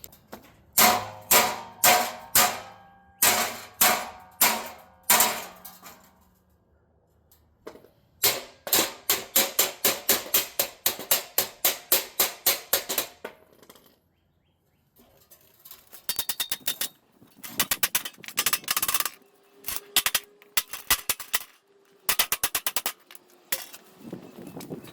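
Repeated sharp metal impacts in runs on steel bumper hardware while seized nuts are cut off: a set of slower ringing blows, then several rapid runs of about five strikes a second with short pauses between.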